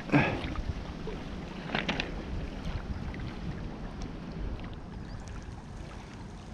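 Wind buffeting the microphone, a steady low rumble, with two short scraping noises, one right at the start and one about two seconds in.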